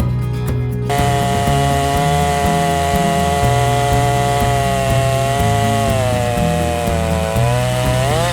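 Chainsaw on a TimberJig chainsaw mill, ripping through a log. It cuts in abruptly about a second in and runs steadily, then its pitch sags near the end and swings sharply up.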